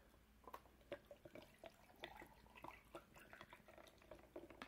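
Faint dripping and small trickles of a drink going into an ice mug, with light clicks scattered through.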